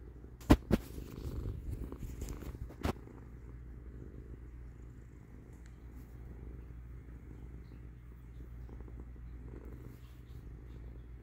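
Domestic cat purring steadily. Several sharp knocks and rustles of the phone moving against the fleece blanket in the first three seconds, the loudest about half a second in.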